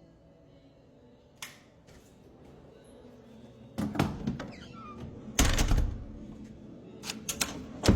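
Scattered knocks and clunks from objects being handled, like cupboard doors or items being set down, with the loudest clatter about five and a half seconds in and a few quick clicks near the end.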